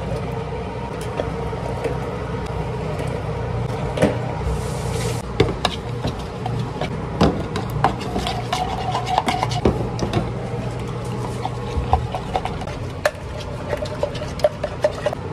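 Milk tea being mixed by hand: a metal stirrer clinking and scraping against plastic measuring cups, with knocks of cups set down on a steel counter and a short pour of liquid about four and a half seconds in. A steady low hum runs underneath.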